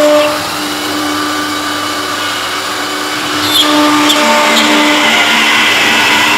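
Double-spindle CNC wood router running, both spindles' bits engraving an MDF panel: a steady whine over the noise of cutting. It drops a little in level about half a second in and grows louder again about three and a half seconds in.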